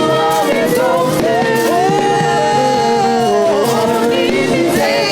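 A gospel choir singing with instrumental backing, holding a long sung note in the middle.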